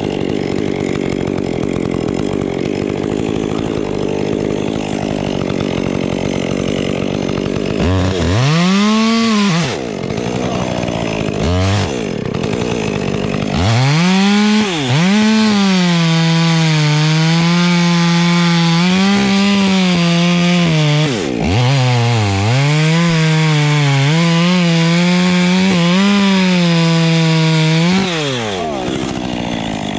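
Chainsaw cutting through a large hard maple limb with too short a bar for the job. The saw labours deep in the cut for the first several seconds, then runs at high revs with several brief dips and drops off near the end.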